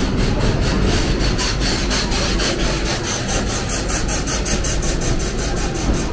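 Indian Railways passenger train, an electric locomotive followed by its coaches, passing close on the next track as heard from aboard a moving train: a loud, steady rumble of wheels on rail with a fast, even pulsing clatter in the rushing hiss.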